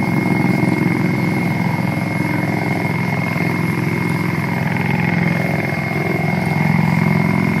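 MV-22 Osprey tiltrotor's twin turboshaft engines and proprotors running: a steady high whine over a dense low drone with a rapid chop.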